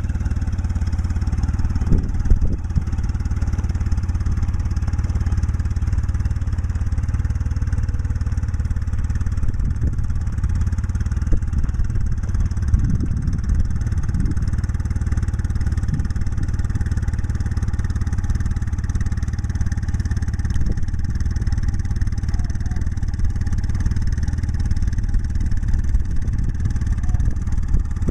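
1990 Honda Gold Wing GL1500's flat-six engine idling steadily, exhausting through aftermarket Harley-Davidson mufflers.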